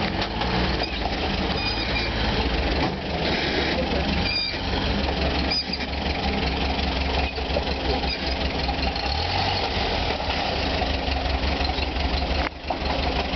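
Engine of an off-road vehicle running steadily, a low rumble under a rough, noisy wash of sound, with a brief dip about twelve and a half seconds in.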